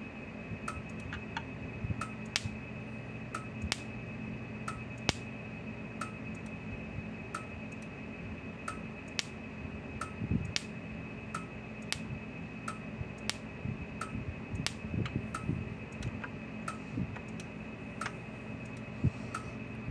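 Gallagher S200 solar fence charger firing its high-voltage pulses across a screwdriver bridging its output terminals: a sharp spark snap a little more than once a second, over a steady faint high whine. The regular snap shows the charger is working and throwing a spark.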